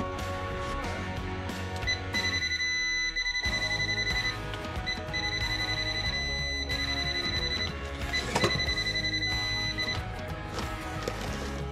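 Background music, with a high steady electronic tone that sounds in three stretches of about two seconds each.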